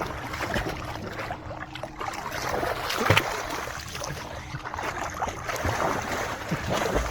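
Pool water sloshing and splashing around people moving in a swimming pool, with one louder hit about three seconds in.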